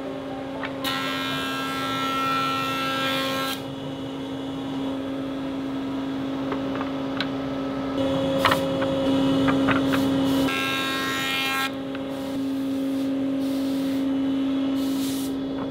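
Jointer running with a steady hum while rough boards are fed across its spinning cutterhead, making a loud cutting whine for a few seconds about a second in and again about halfway through. A couple of sharp wooden clacks sound between the two cuts.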